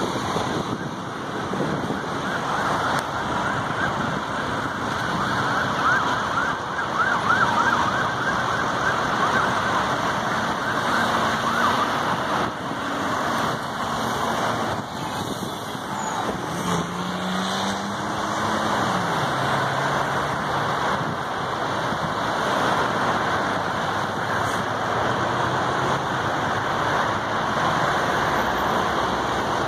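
An emergency vehicle's siren wails over steady road traffic and running vehicle engines. The siren is most prominent in the first half.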